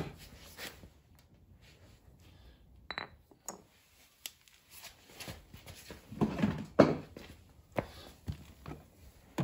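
Scattered clicks and knocks from handling a plastic ultrasonic cleaner and its lid, with a short high beep about three seconds in and a sharp knock near seven seconds that is the loudest.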